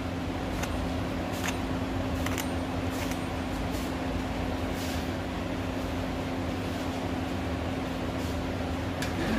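A steady motor hum with a constant low tone, with a few short faint clicks scattered over it.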